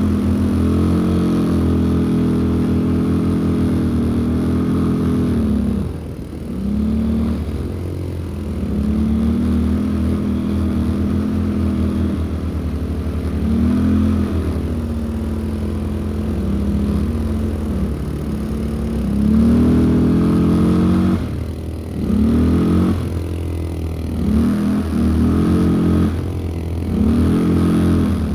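ATV engine running under way, its pitch rising and falling as the throttle is opened and closed. There is a run of short, quick throttle blips near the end.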